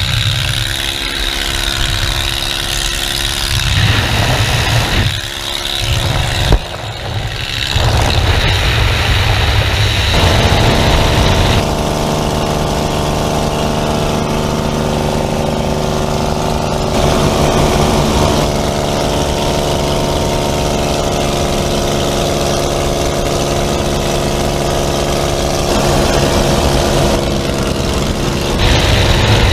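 Utva 66 light aircraft's piston engine and propeller droning, heard from inside the cabin with the door open. For the first several seconds uneven wind noise through the open door is the loudest thing. After that the engine drone runs steadily.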